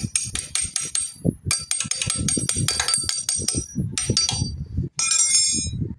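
Rapid metallic clicking and clinking of steel hand tools on engine bolts and parts, in several quick runs of sharp, ringing clicks broken by short pauses.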